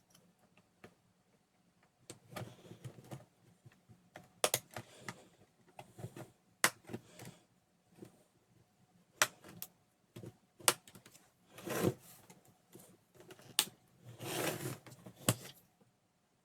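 Plastic bottom cover of a Lenovo IdeaPad 330 laptop being pried off its case: about half a dozen sharp clicks as the snap clips let go, with plastic scraping and rubbing between them.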